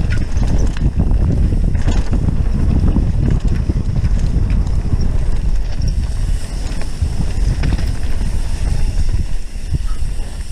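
Wind rumbling on the microphone as a mountain bike rides fast down a dirt trail, mixed with tyre noise on the dirt and short rattles and clicks from the bike over the bumps.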